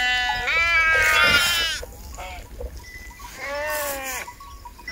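Sheep bleating, several calls one after another. The loudest comes in the first couple of seconds, and another comes about three and a half seconds in.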